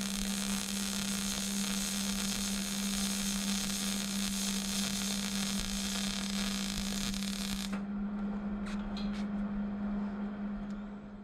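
Welding arc crackling and hissing steadily on a steel exhaust pipe joint, cutting off suddenly about three quarters of the way through. A steady low hum runs underneath, and a few light clicks follow once the arc stops.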